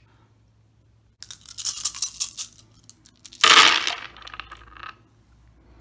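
About twenty-two six-sided dice rattling for about a second and a half, then thrown into a wooden dice tray: a loud clatter about three and a half seconds in as they land, followed by a few lighter clicks as they roll to a stop.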